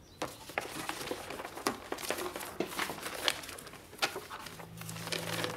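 Pencil scratching and tapping on paper in quick, irregular strokes, as in drawing. Low, steady music tones fade in near the end.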